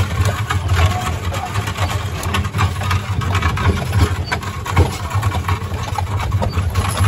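Horse-drawn carriage rolling along a gravel road: a steady low rumble from the wheels, with scattered crunching and rattling clicks over it.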